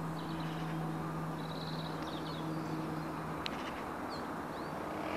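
Outdoor ambience: a steady rushing background with a constant low hum, and faint high bird calls, a short trill about a third of the way in and a couple of brief chirps later.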